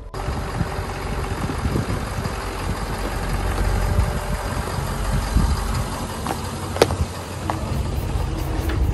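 Motor vehicle engine running with a steady low rumble, with a sharp click about seven seconds in.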